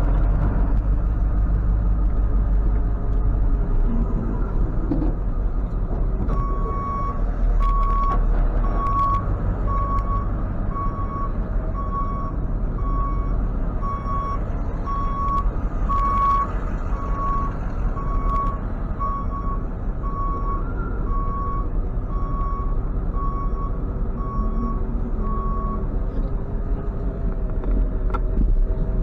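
Tow truck idling while backing up, its reversing alarm beeping steadily about one and a half times a second. The beeping starts about six seconds in and stops a few seconds before the end, with the engine running underneath throughout.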